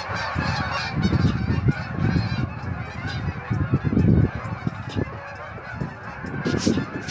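A big migrating flock of a couple hundred geese honking overhead, many calls overlapping at once. A low rumble surges in and out beneath them, loudest about four seconds in.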